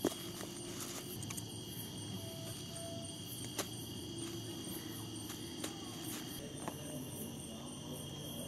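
Steady high-pitched chorus of crickets and other night insects, several tones held at once, with a few short sharp clicks scattered through it.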